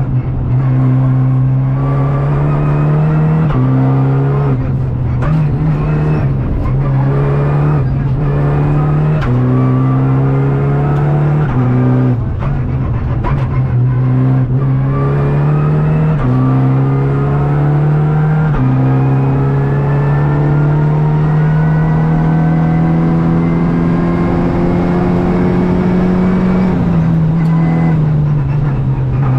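Renault Clio Rally5's turbocharged 1.3-litre four-cylinder engine, heard from inside the cabin, driven hard through the gears. The engine note climbs and then steps to a new pitch at each gear change, and near the end it makes one long climb in a single gear before dropping. Tyre and road noise and knocks from the bodywork run underneath.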